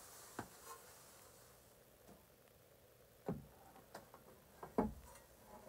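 A few faint, scattered taps and knocks of a large hand-formed sheet-metal petal being handled and hung on wall nails, the two loudest about three and five seconds in.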